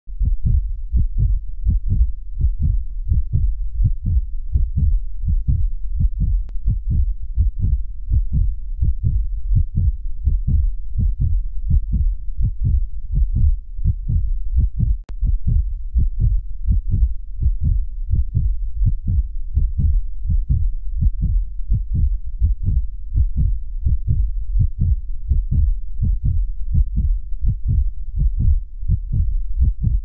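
Human heartbeat: a steady, regular rhythm of low, dull thumps.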